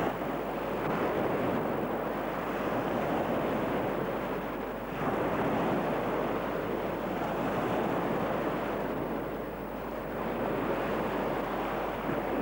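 Small waves washing onto a pebbly shore, mixed with wind rushing on the microphone, as a continuous noise with brief lulls about five seconds in and again near ten seconds.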